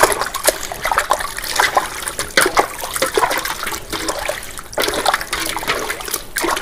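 Water sloshing and splashing in a metal basin as a whole raw chicken is rubbed and turned over by hand, in irregular splashes.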